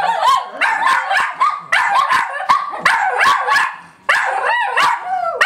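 Shih Tzus barking at a UPS truck: quick, sharp barks about three a second, mixed with wavering, whining howls.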